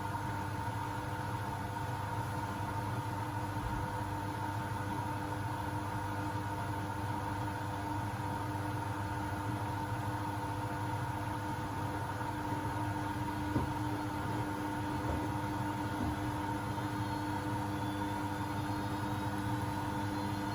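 Beko WMB71642W front-loading washing machine in its final spin, set to 1000 rpm: a steady motor-and-drum hum with a faint high whine that rises near the end.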